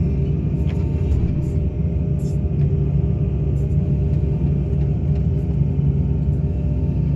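Excavator engine running steadily with a low, even hum, and a few faint, brief high clicks scattered through it.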